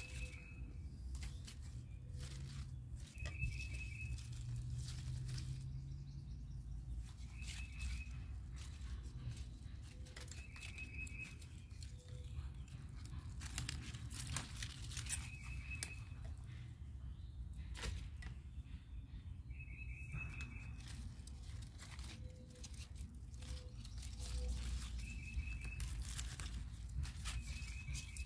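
Romaine lettuce leaves snapped off and rustled by hand, a string of small tearing snaps and crinkles. A short trilled chirp, likely a small bird, repeats every few seconds.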